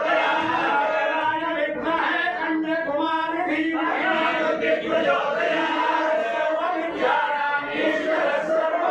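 Several voices chanting together in unison with long held notes: worship chanting during a Hindu temple puja.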